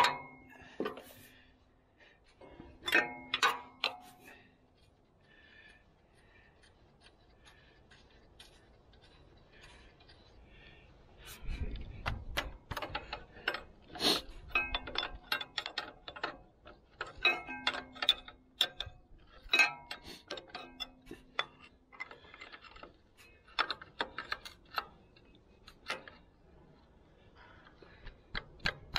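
Wrenches clinking and ringing against the steel injector line nuts of a Cummins 6BT diesel as the lines are loosened: scattered metallic taps and clicks, some with a short ring, coming more often in the second half.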